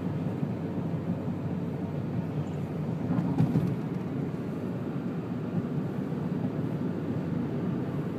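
Steady road and engine noise heard inside a moving car's cabin, briefly louder about three seconds in.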